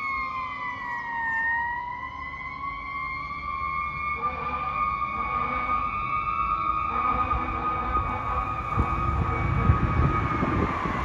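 Fire truck siren sounding a slow wail: the pitch sags about a second in, slowly climbs back and holds, then starts to fall again near the end. The rumble of the truck's engine and the passing traffic grows louder near the end as the apparatus draws closer.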